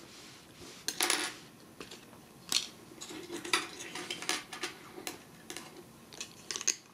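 Hard plastic parts of a Transformers Strafe action figure clicking and tapping together as a weapon accessory is worked onto the peg hole under its wing, in irregular small clicks with a few louder snaps.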